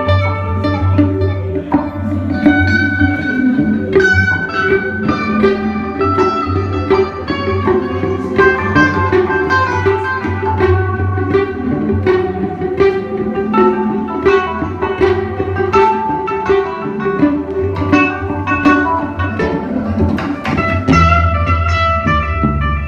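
Live instrumental jam: a guitar picks a quick run of notes over a sustained low bass line, with percussion in the mix.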